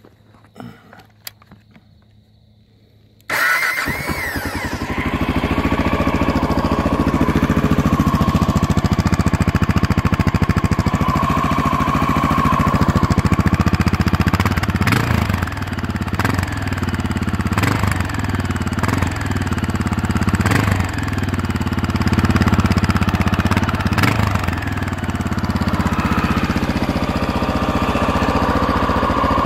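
2002 Honda XR650L's single-cylinder engine, fitted with an FMF Power Bomb header, the stock muffler, an FMF jet kit and a 657 big-bore kit, starting about three seconds in and idling. In the middle it is given about half a dozen quick throttle blips, each falling back to idle, before idling steadily again.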